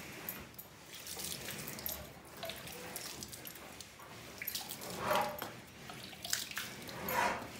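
Cow being milked by hand into a small plastic jar: short streams of milk squirting into the container in a quick rhythm, with two louder, longer spurts about five and seven seconds in.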